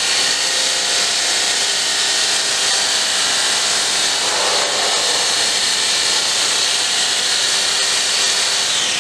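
Handheld electric blender with a whisk attachment running steadily, whisking milk and flavour powder in a plastic tub, with a high motor whine. It is switched off at the very end, its pitch falling as the motor winds down.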